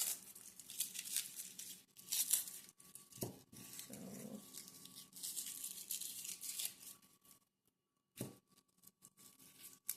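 Rustling and crinkling of food packaging being handled, in bursts, with a few sharp knocks; it thins to scattered clicks near the end.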